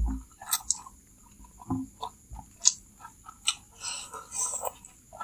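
Two people slurping and chewing chicken noodles (mie ayam): irregular wet slurps and short mouth smacks.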